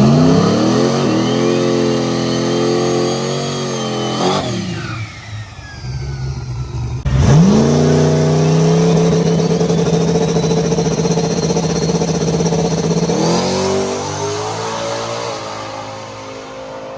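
Turbocharged 5.3 LS V8 in a methanol-fuelled Fox-body Mustang drag car, revved hard for a few seconds with a rising turbo whistle, then dropping back. About seven seconds in it launches at full throttle and runs hard down the strip with turbo whine over the exhaust, the note changing and fading as the car pulls away.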